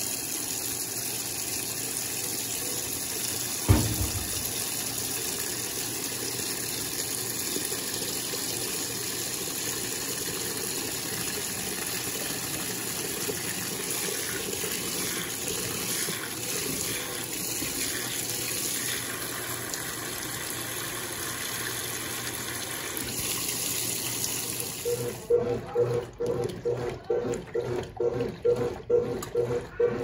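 Water pouring steadily from the inlet into the tub of a 1992 Brastemp Baby top-loading washing machine as it fills for a towel wash, with a single knock a few seconds in. Near the end the agitator starts, churning the water and towels rhythmically at about two strokes a second over a steady motor hum.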